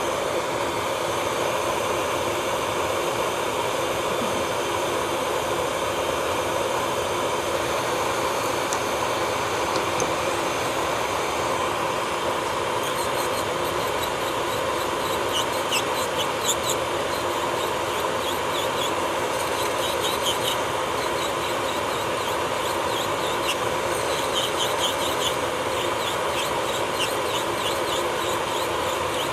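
Electric nail drill (e-file) running at a steady speed, its bit grinding on the nail. From about halfway on, short high squeaks come on top.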